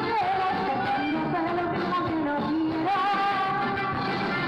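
Live band music: women's voices singing long held notes over accordion, electric guitar and drums.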